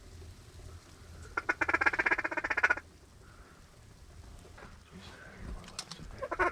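Duck quacking: a rapid run of pulsed quacks about a second and a half long, starting about a second and a half in, over a low wind rumble.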